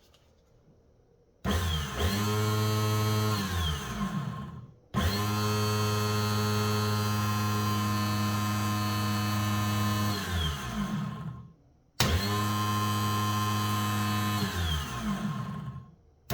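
Electric starter motor from a 1985 Suzuki LT300 quad run on the bench, spinning up with a steady whine three times, about a second and a half in, at five seconds and at twelve seconds, and falling in pitch as it winds down after each run. It sounds a bit weak, a sign the starter may be failing.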